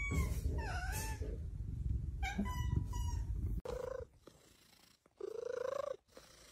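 A domestic cat meowing in drawn-out, wavering calls ("meeyaaaaa oooo, aoaoao") over a steady low rumble. After a sudden cut about three and a half seconds in, a second cat gives two shorter, lower meows.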